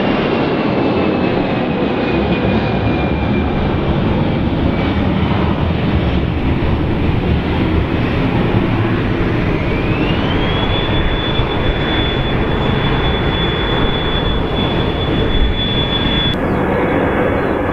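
Airbus A320 jet engines running loud and steady as the airliner lines up on the runway. About nine and a half seconds in they spool up with a rising whine that then holds at a steady high pitch as takeoff thrust is set for the takeoff roll.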